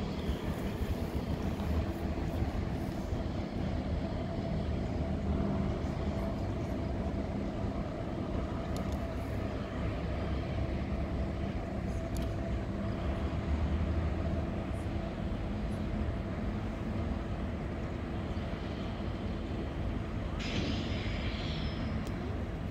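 Freight train of grain hopper cars passing at a distance, with the steady low rumble of its diesel locomotives and rolling wheels.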